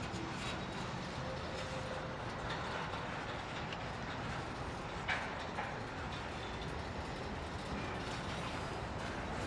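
Long freight train passing, its railcars rolling steadily over the rails, with a sharp click about five seconds in.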